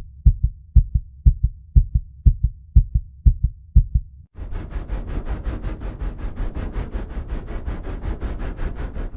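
Heartbeat sound effect: deep low thumps in lub-dub pairs, fast and even, roughly two beats a second. About four seconds in it gives way to a dense low rumble with rapid ticking pulses, about eight a second, which cuts off suddenly near the end.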